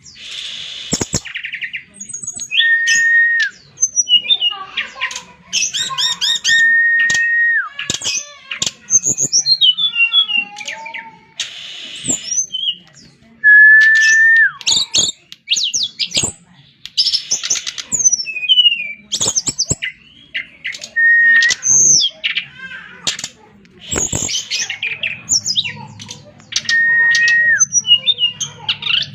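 Brown-chested jungle flycatcher in full song, a continuous, varied medley. Clear held whistles on one level pitch recur every few seconds, with rapid twittering, trills and harsher buzzy notes between them.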